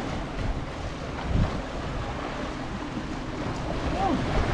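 Small sea waves washing against breakwater rocks, with wind buffeting the microphone in low rumbles, one stronger gust about a second and a half in.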